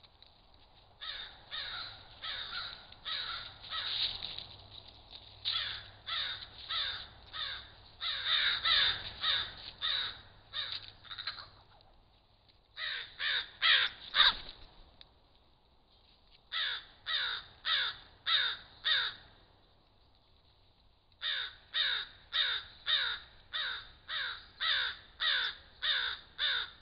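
Crows cawing: bouts of short, harsh caws repeated about two a second, with pauses of a second or two between bouts.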